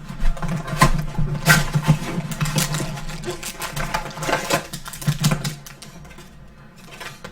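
Trading card packs and cards being handled: irregular crinkling and rustling of pack wrappers and card stock over a low steady hum, settling quieter near the end.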